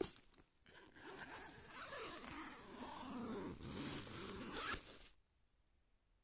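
Tent inner's zip being pulled by hand along the mesh door, a rasping zipping run of about four seconds that stops abruptly about five seconds in.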